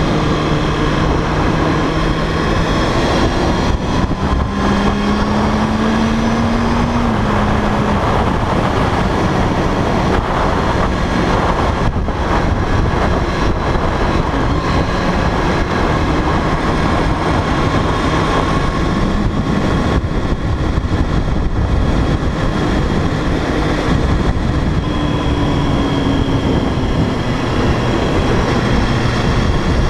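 Riding on a sport motorcycle: heavy wind rush on the camera microphone over the engine's hum, whose pitch rises and falls with the throttle.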